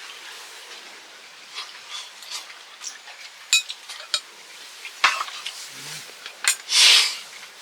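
Camp cooking sounds: metal utensils clicking and clinking against cookware a few times, then a short hiss near the end.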